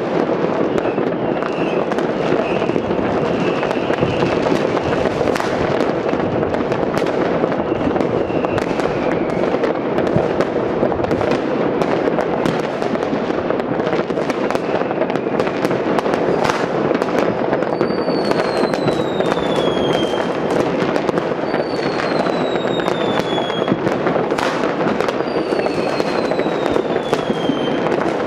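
Distant fireworks going off all over a city: a continuous dense crackle and banging of countless firecrackers and rockets, with sharp bangs throughout. Three falling whistles sound one after another in the second half.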